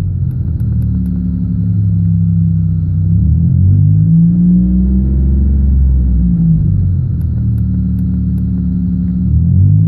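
1999 Pontiac Bonneville's 3800 V6 engine running, its speed rising and falling several times; the engine is one its owner says misfires and is still not right.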